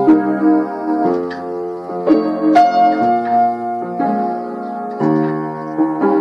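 Background piano music, a slow melody with chords changing about once a second.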